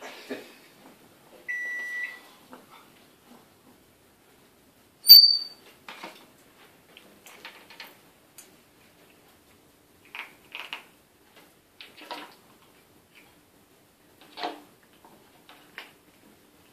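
African grey parrot giving a steady whistled beep, like an appliance beep, about a second and a half in, then a loud sharp high whistle about five seconds in. Scattered soft clicks and taps follow.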